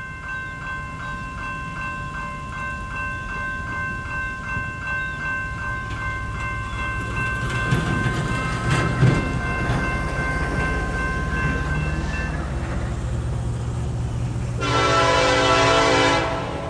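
Diesel freight locomotive approaching with a low, steady engine rumble, while a bell rings repeatedly and then stops about two-thirds of the way through. Near the end comes one blast of the locomotive's multi-chime air horn, several tones together, lasting about a second and a half.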